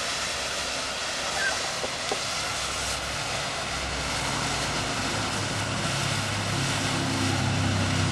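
Potassium nitrate and sugar smoke composition burning in a foil-wrapped spray-can cap, making a steady rushing hiss with a few small crackles in the first couple of seconds. From about halfway, a low engine drone grows louder underneath.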